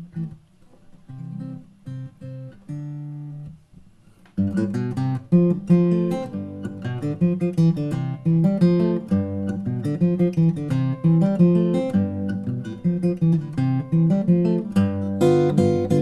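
Solo acoustic guitar: a few soft picked notes, then from about four seconds in, full strummed chords in a steady rhythm.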